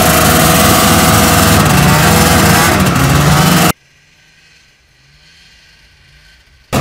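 1979 Ski-Doo Everest 444 LC snowmobile's liquid-cooled two-stroke engine running under way, loud from on board, its pitch rising a little past halfway. It then cuts off suddenly to the sled heard faintly from far off, rising in pitch as it comes, before the loud on-board engine sound returns just before the end.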